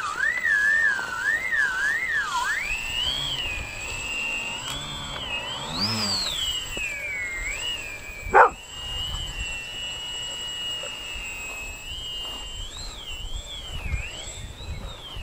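Twin electric motors of a depron RC model airplane whining, the pitch rising and falling as the throttle changes and the plane flies around. About eight seconds in the whine briefly plunges low with a short loud jump in level, then comes back higher and steadier.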